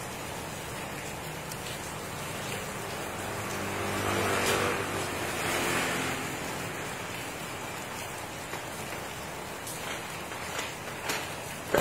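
Steady rain falling on wet pavement. In the middle a vehicle passes on the wet road, its low engine hum and tyre hiss swelling and fading.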